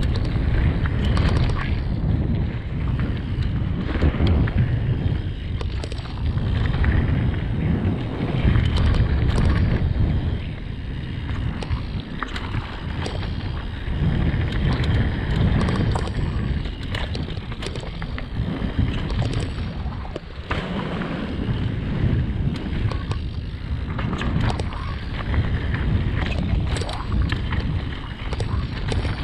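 Wind rushing over a GoPro Hero 7 Black's microphone and tyres rumbling on a dirt trail as a Radon Swoop 8.0 AL mountain bike rides downhill, with frequent sharp clicks and rattles from the bike over bumps.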